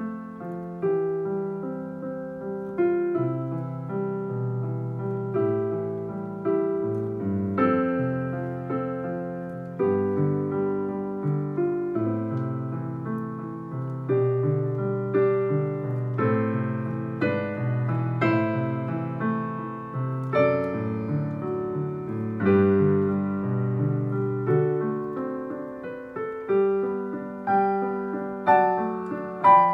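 Digital piano played solo with both hands: a melody over sustained chords, with notes struck steadily throughout.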